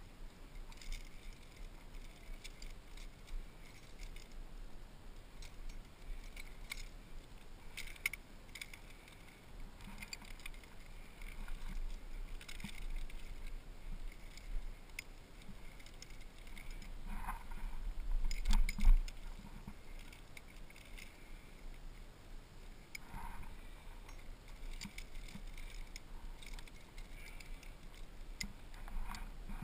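Metal climbing gear clinking and jangling: carabiners, quickdraws and cams on a harness rack knocking together as a lead climber places protection in a rock crack. Scattered irregular clinks, with a louder cluster about two-thirds of the way through.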